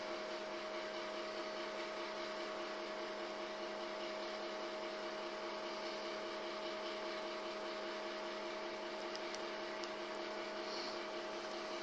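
A steady electrical hum: a fixed mid-pitched tone with lower tones beneath it over a faint hiss, unchanging throughout, with a couple of faint ticks near the end.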